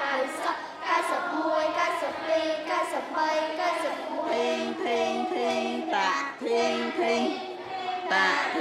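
Children singing with music: a melody of short notes, then from about halfway a run of evenly spaced held notes.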